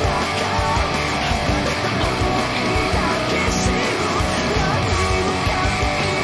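Stratocaster-style electric guitar playing a rock song over a full-band backing track, at a steady loud level throughout.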